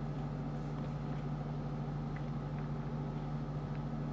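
Steady low hum of background noise in a screen-recording microphone, with a couple of faint clicks about two seconds in.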